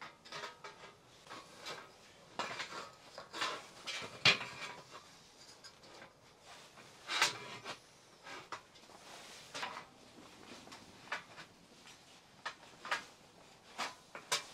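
Cookware and utensils being handled: scattered clinks and knocks, the sharpest about four seconds in.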